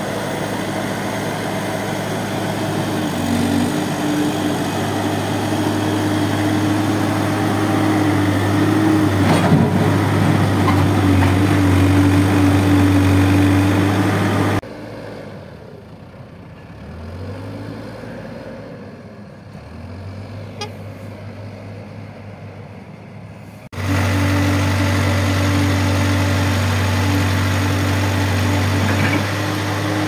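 Case 570ST backhoe loader's diesel engine running close by with a steady, loud note. About halfway through the sound cuts suddenly to a quieter, more distant backhoe engine whose pitch rises and falls as it works, then cuts back to the loud steady running.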